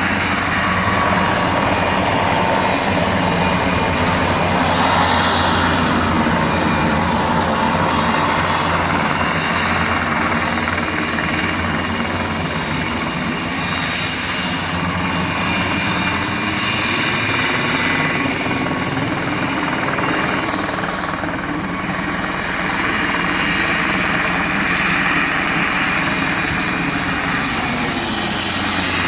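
Mosquito XET single-seat turbine helicopter in flight: the turbine's thin, steady high whine over a continuous rush of rotor and air noise, holding level throughout with only slight dips.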